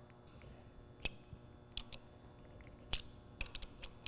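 Scattered sharp metallic clicks of a socket nut driver on the steel flange bolts of a back pressure regulator's upper housing as they are tightened, with several clicks close together in the second half.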